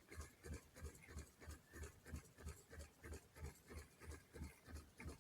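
Faint, even rhythmic knocking, about three to four beats a second, from a rolling wheeled vehicle. It sounds like the clip-clop of hooves.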